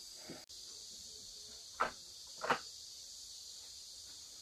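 Insects chirring steadily and high-pitched, with two short sharp sounds about two seconds in, under a second apart.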